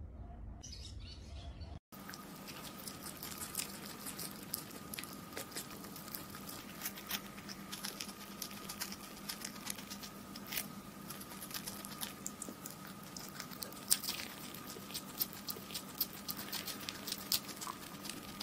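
Hamster gnawing and nibbling a baby corn cob close to the microphone, starting about two seconds in: a rapid, irregular patter of small crunching clicks over a faint steady hum.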